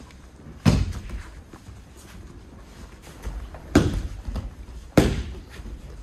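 Three heavy thuds of people falling onto practice mats as aikido partners take their falls from throws: one about a second in, then two close together near the end.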